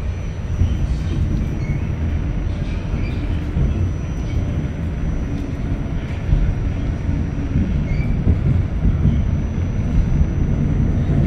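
Steady rumble of a New York City subway car running, steel wheels on rails, heard from inside the car, with a faint steady high tone above it.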